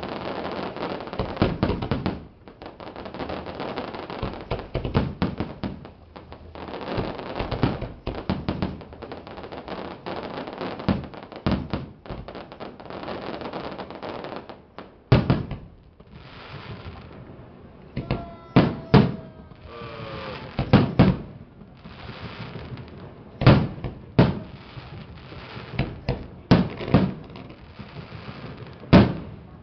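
Fireworks display: a string of booming bursts and crackling, with a few short falling whistles about two-thirds of the way through.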